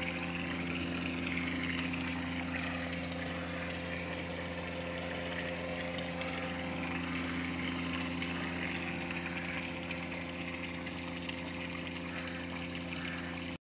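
Steady machine hum with several fixed pitches over a wash of water noise, heard with the microphone under the water of a biofloc fish tank: the tank's aeration pump running. It cuts off abruptly near the end.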